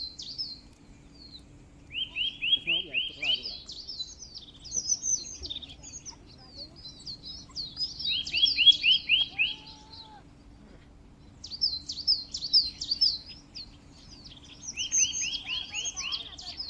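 Birds singing: a phrase of five or six quick, evenly spaced notes, followed by higher twittering, comes three times about six seconds apart.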